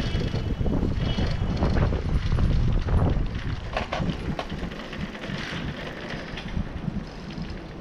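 Bicycle riding along a brick-paved street: wind buffeting the camera's microphone in a steady low rumble, with the bike rattling irregularly over the pavers.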